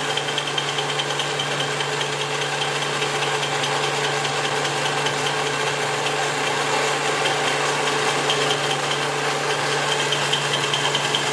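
Electric mixer-grinder motor running steadily with its vegetable-slicer attachment fitted, slicing raw plantain: an even motor hum with a faint high whine.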